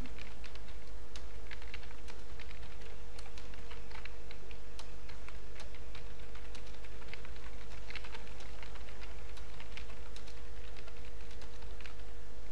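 Typing on a computer keyboard: quick, irregular key clicks over a steady background hum.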